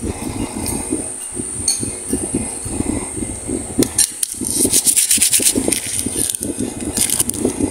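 A twist-wrapped candy's plastic wrapper crinkling as fingers squeeze and turn it. The rustle rises to a dense burst a little past halfway and again near the end.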